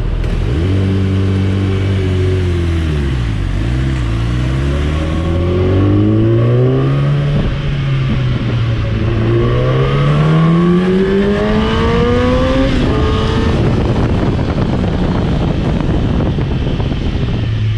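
Motorcycle engine running and accelerating: its pitch climbs steadily, drops suddenly, climbs again and drops again about two-thirds of the way in, like upshifts through the gears.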